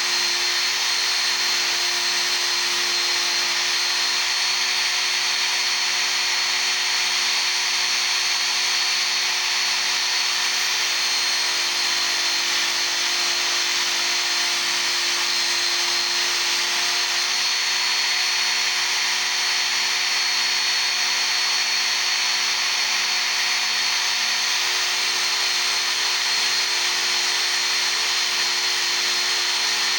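Work Sharp Ken Onion Edition belt sharpener running steadily, its motor's even whine under the hiss of a steel chisel ground against the abrasive belt.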